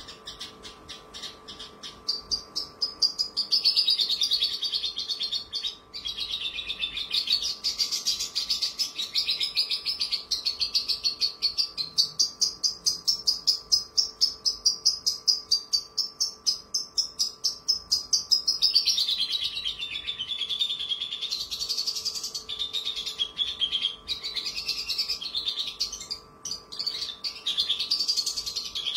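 Caged Horsfield's bush lark (branjangan) singing. A run of quick clicking notes gives way about two seconds in to a continuous song of rapid chattering trills, with one long pulsing trill through the middle. A faint steady hum runs underneath.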